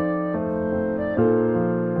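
Slow piano or keyboard music: sustained chords, with a new chord struck about a third of a second in and again just past the middle, each fading slowly.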